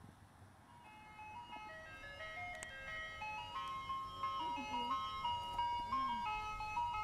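An ice-cream-truck style jingle: a simple melody of bright single notes that fades in about a second in and grows louder.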